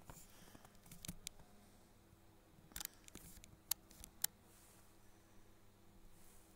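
Faint steady hum of the SJRC F11S 4K Pro quadcopter's propellers as it descends overhead, with a few sharp clicks, the loudest about four seconds in.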